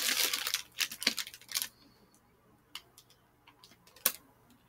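Crunching and chewing of a hard frozen grape close to the microphone: a dense crackle at the start, thinning after about a second and a half to a few scattered sharp clicks.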